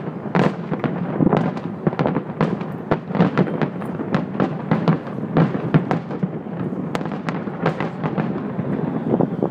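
Fireworks display going off in quick succession: sharp overlapping bangs, several a second, each with a short echo, over a constant crackle, with a faint falling whistle near the end.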